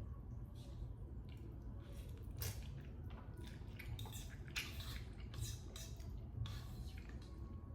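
Close-up wet chewing and slurping of soupy chicken noodles: an irregular run of short squishy mouth sounds.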